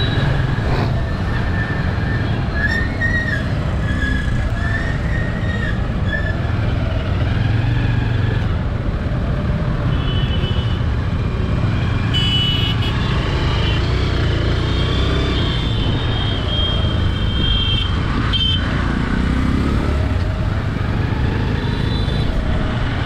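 Road traffic: a steady rumble of passing cars and motorbikes, with high held tones through the middle of the stretch.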